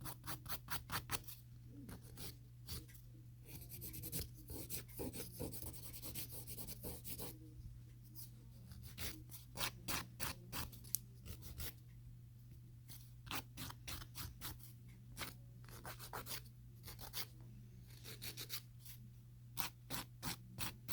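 Hand nail file, 150 grit, rasping back and forth over a gel nail in quick runs of strokes with short pauses, shaping the nail toward an almond tip.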